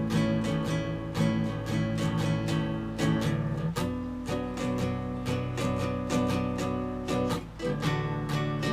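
Acoustic guitar strummed in steady down-strokes, a few a second, cycling through the chords A, B minor and D with a change roughly every four seconds.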